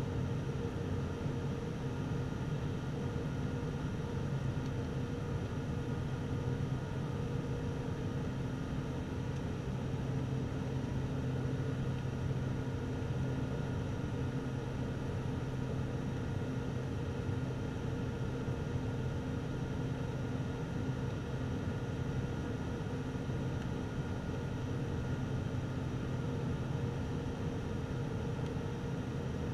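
Turboprop airliner's engine and propeller heard from inside the cabin during the approach: a steady, unchanging drone with a low hum and a few constant higher tones over rushing air noise.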